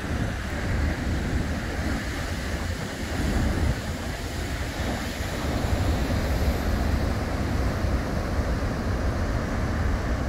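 Heavy surf breaking and washing ashore in a steady rush, with wind buffeting the microphone in a low rumble.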